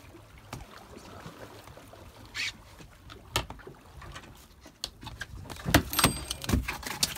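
Choppy water against a small fishing boat's hull with a low rumble of wind on the microphone, then a run of sharp knocks and clatters near the end.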